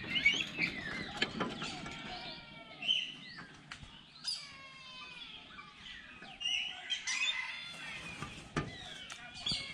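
Several birds calling together: many overlapping chirps and short whistles sliding up and down in pitch, with a few sharp clicks.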